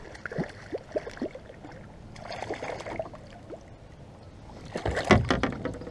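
A hooked bass splashing at the side of a kayak as it is brought in and landed, with water sloshing and small knocks against the hull. About five seconds in there is a louder burst of splashing and knocking.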